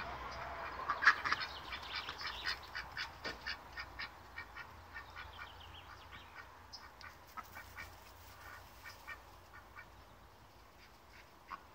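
White domestic duck quacking in a long run of short quacks, about three a second, growing gradually softer until it dies away, with one more quack near the end.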